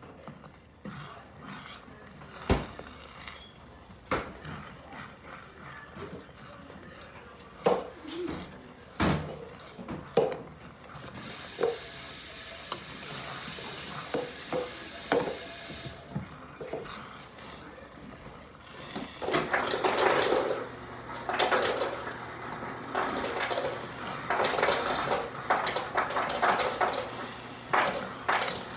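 Kitchen work sounds: pans and utensils knock and clink, water runs from a tap for a few seconds around the middle, and then, from about two-thirds of the way in, a utensil scrapes and stirs busily in a frying pan.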